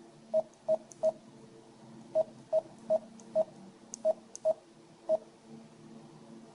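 Garmin nuvi 660 GPS touchscreen giving short key-press beeps, ten pips at one pitch in an irregular rhythm, as taps on the newly replaced digitizer register.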